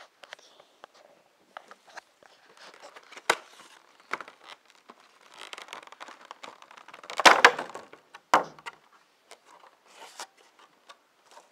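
Hands handling the clear plastic tray and packs of a Pokémon TCG Trainer Kit: scattered plastic clicks and rustles, loudest in a cluster of clicks about seven seconds in, with one sharp click just after.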